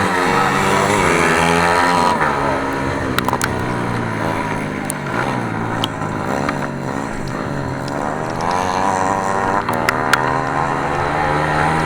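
Racing motorcycle engines running hard, their pitch rising and falling over and over as the bikes accelerate and back off through the laps, with a few sharp clicks.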